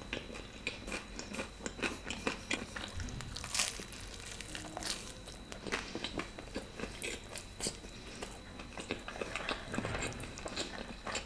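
Close-miked chewing of a mouthful of giant mac-and-cheese pizza slice, with scattered crisp crunches from the crust, which is still crunchy.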